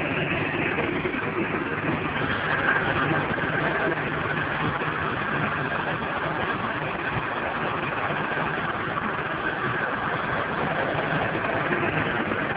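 John Deere 5725 tractor's diesel engine running steadily under load while pulling a plough.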